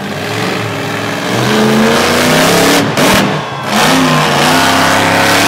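Monster truck engine revving hard as the truck accelerates, its pitch climbing, easing off for a moment about three seconds in, then revving up again.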